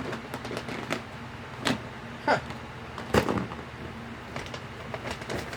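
A package being handled and opened: scattered clicks, rustles and a few knocks, the loudest about three seconds in, over a steady low hum.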